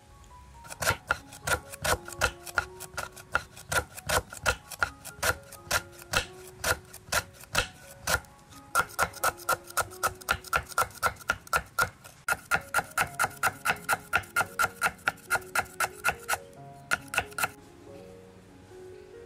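Large kitchen knife slicing lemongrass stalks on a wooden cutting board: quick, even chops, about four a second, with a couple of short breaks, stopping near the end. Soft background music runs underneath.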